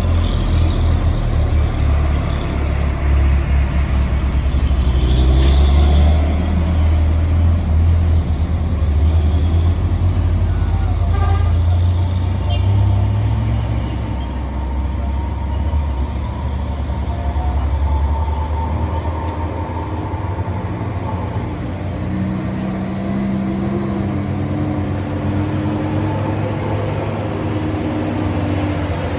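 Heavy trucks passing with a low engine rumble, and a telolet multi-tone air horn tooting. The rumble eases about halfway, and steady pitched horn tones hold through the second half.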